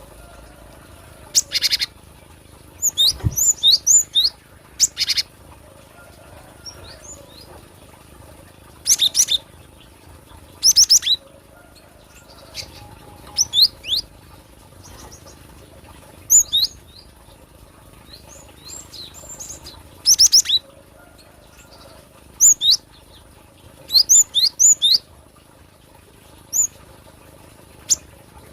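Cinereous tit (gelatik batu) calling: quick bursts of rapid repeated notes and sharp, downward-swept chirps, coming every second or two at irregular intervals. There is a brief low thump about three seconds in.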